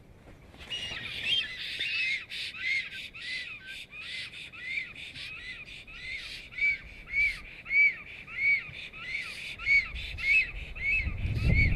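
Black storks calling at the nest during the pair's greeting: a long, even series of rising-and-falling calls, about two a second. A low rumbling noise rises near the end.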